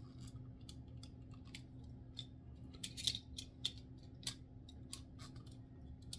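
Small, sharp plastic clicks and taps, scattered irregularly with a few louder ones in the middle, as the parts of a Hyper Cluster yoyo are handled and twisted back together, over a steady low hum.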